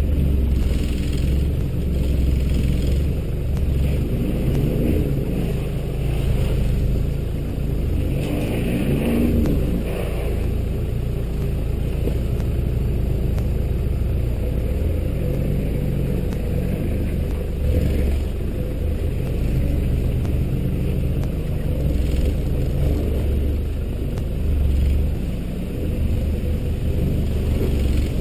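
Toyota Hilux four-wheel drive crawling up a rough, rocky track: the engine runs under load with a steady low rumble, its revs rising and falling a few times, while the body and suspension knock and rattle over the rocks.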